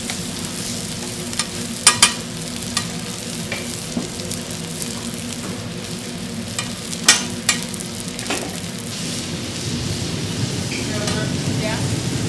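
Eggs and ham frying on a flat-top griddle: a steady sizzle that grows louder near the end. Sharp clicks of a metal spatula on the griddle come in two pairs, about two seconds in and about seven seconds in.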